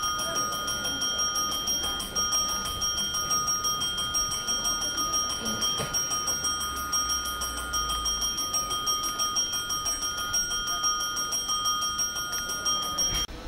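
Electric railway warning bell ringing continuously in rapid, even strokes, cutting off suddenly near the end.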